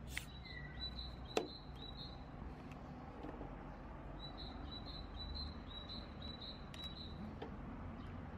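A small bird chirping in rapid series of short high notes, in two bouts, over a low steady background hum. A single sharp click stands out about a second and a half in.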